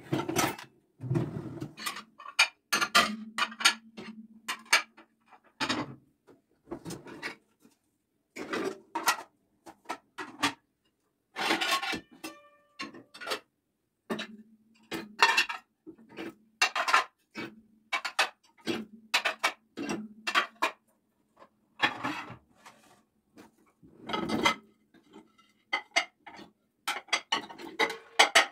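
Plates, bowls and cutlery clinking and knocking against each other and against the dishwasher's wire racks as the dishwasher is unloaded, in a long run of short sharp clatters. A low steady hum comes and goes underneath.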